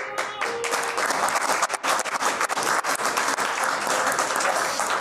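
Theatre audience applauding: dense, steady clapping that builds within the first second, with the tail of a held musical note at the very start.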